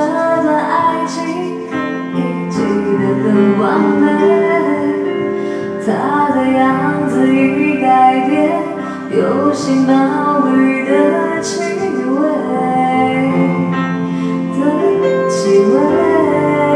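A woman singing a song into a handheld microphone over instrumental backing music.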